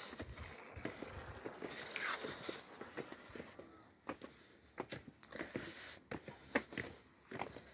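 Footsteps walking down a stone path strewn with dry leaves: a series of soft, irregular taps and scuffs.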